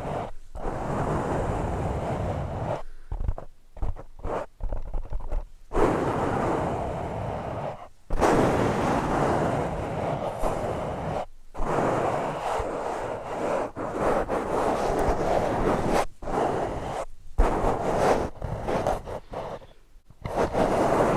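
An object brushed and rubbed directly against a microphone: long, rough scratching strokes lasting a few seconds each, separated by short pauses.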